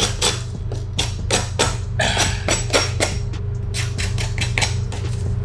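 A knife drawn along folded poster board, slitting and tearing it at the crease: a run of quick, irregular scraping rips, over a steady low hum.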